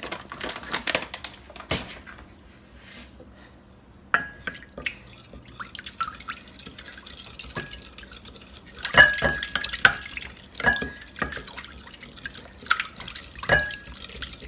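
A wooden spoon stirring tea in a glass measuring jug, knocking against the glass in irregular clinks that each ring briefly, loudest about two-thirds of the way through. The stirring dissolves a teaspoon of ascorbic acid powder into the tea.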